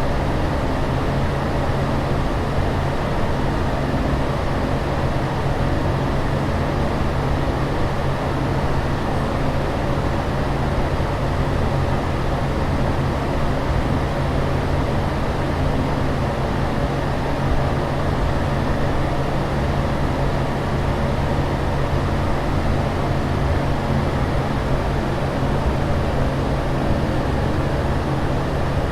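Steady aircraft cabin noise in flight: an even rushing drone with a low hum underneath, unchanging throughout.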